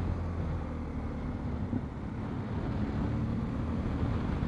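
BMW R1250 GS Adventure's boxer-twin engine running while the motorcycle is ridden, heard as a steady low rumble mixed with wind rush.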